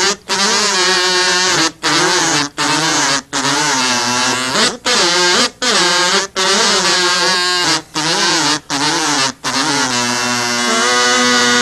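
Three small handheld mouth instruments playing a tune together in harmony, the notes wavering in pitch and broken by short gaps. From about ten seconds in they hold a steady chord.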